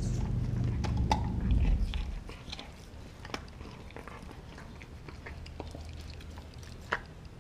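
Dog gnawing and crunching on a frozen raw pig's foot, irregular crunches and clicks of teeth on hard frozen bone and skin, with a sharper crack near the end. A low rumble runs through the first two seconds.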